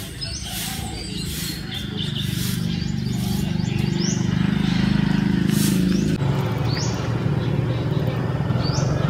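A motorcycle engine running, growing louder over the first few seconds and dropping a step abruptly about six seconds in, with short bird chirps now and then.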